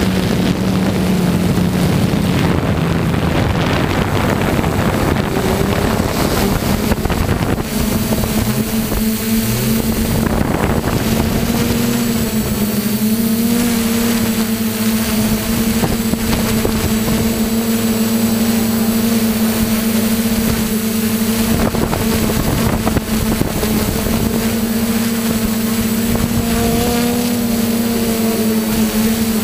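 Quadcopter drone's electric motors and propellers humming steadily, heard from the drone's own onboard camera, with wind noise on the microphone. The hum steps up slightly in pitch about seven and a half seconds in as the motors speed up.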